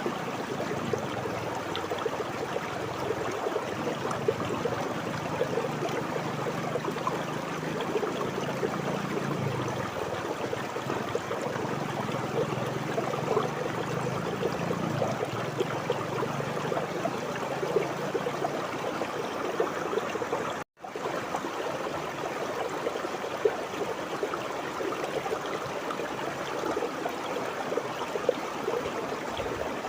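River water flowing and babbling steadily over stones, with a low undertone for the first two-thirds. About two-thirds of the way through, the sound cuts out completely for a split second and then resumes.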